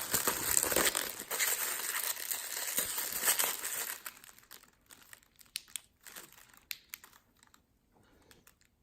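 Packaging being unwrapped by hand, crinkling and rustling for about four seconds, then a few light clicks and taps as handling quiets down.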